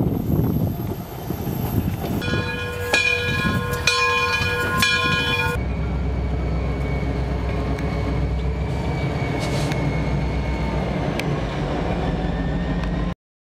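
A train rolling past, then a multi-tone train horn sounding several blasts, then a diesel locomotive engine running with a deep steady rumble that cuts off abruptly near the end.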